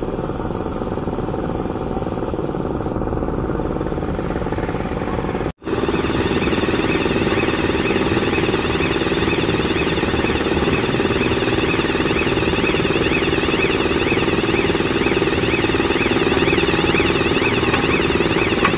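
A girder launcher's machinery runs with a steady engine drone. After a brief break about five and a half seconds in it is louder, with a warbling warning tone sounding continuously over it.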